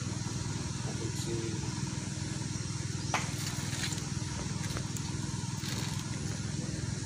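A small engine running steadily, a low even drone with a fast pulse, and a few faint clicks over it.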